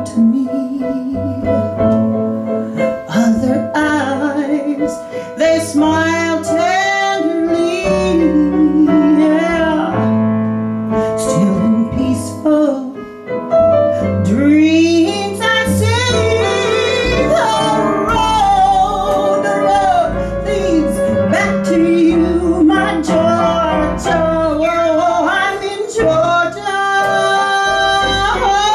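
A female singer singing a blues song live, with long held notes that bend in pitch, accompanied by upright bass and keyboard.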